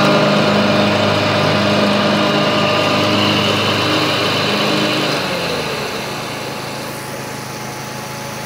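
John Deere Z425 zero-turn mower's engine running steadily at speed. About five seconds in, the engine note falls and the sound grows quieter, as if throttled back.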